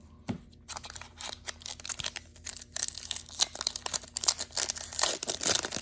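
Foil wrapper of a trading-card hobby pack being torn open and crinkled by hand: a dense run of irregular crackles and snaps that grows louder near the end.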